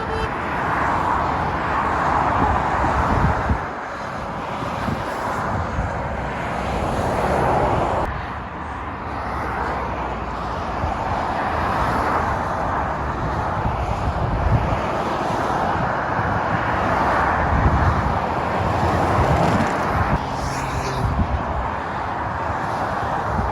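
Motorway traffic with lorries and cars passing one after another: a steady rush of tyre and engine noise that swells and eases as vehicles go by.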